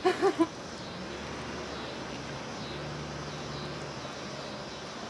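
A woman's short laugh at the start, then quiet outdoor background with a faint, steady low hum from about a second in until near the end.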